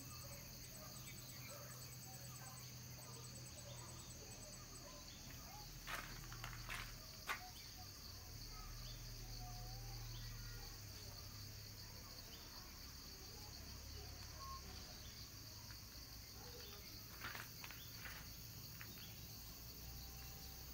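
Faint insect chorus: a steady high-pitched buzz. Rapid chirping pulses sound over the first four seconds or so, and a few brief knocks come about six and seven seconds in.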